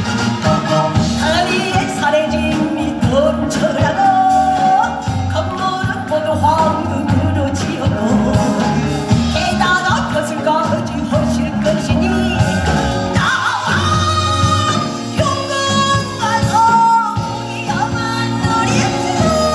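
A woman singing in pansori style into a microphone, her held, bending vocal line amplified over a Korean traditional orchestra with zithers playing steadily beneath.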